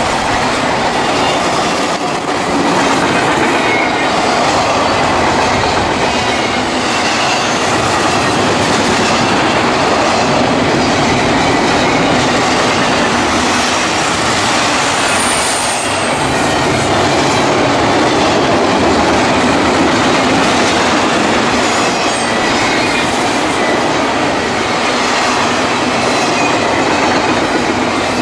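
Double-stack intermodal freight train's container well cars passing close by: a steady rumble and rattle of steel wheels on the rails.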